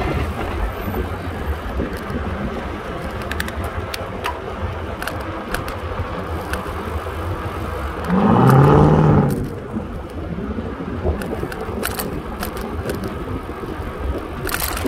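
Wind buffeting the microphone and road rumble while riding along a city street in traffic, with scattered rattles and clicks. About eight seconds in, a louder pitched sound with a slight glide lasts about a second and a half.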